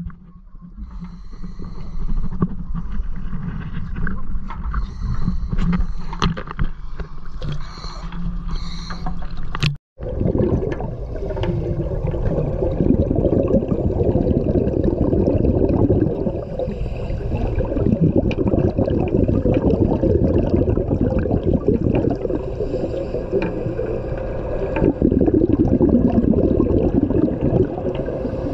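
Steady low hum and wind noise on a boat deck, cutting off abruptly about ten seconds in. Then underwater noise of water churning and gurgling around a submerged camera, swelling louder at times.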